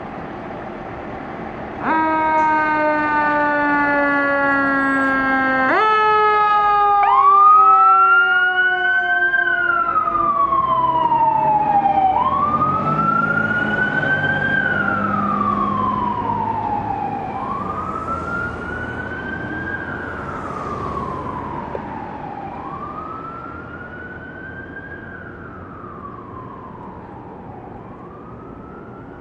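2010 Seagrave Marauder II fire engine sounding its warning devices on an emergency response. About two seconds in a loud, low horn-like tone with many overtones starts; it jumps up in pitch about six seconds in and slides slowly down. Meanwhile a siren wail rises and falls about every five seconds, fading as the truck drives away.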